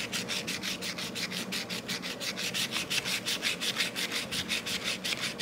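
Sandpaper wrapped round a ruler is rubbed fast back and forth over the bevelled edge of an old scissors blade, an even rasping of about seven or eight strokes a second: the dull blade being sharpened.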